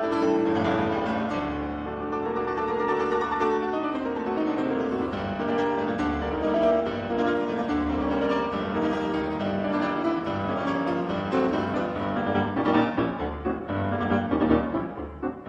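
Classical piano music playing without a break.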